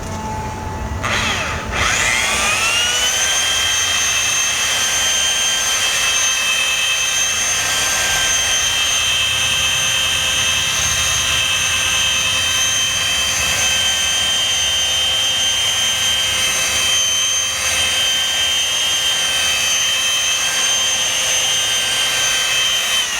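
Electric polisher spinning up to speed about two seconds in and running steadily as its pad works polish into a boat's surface, then winding down at the very end.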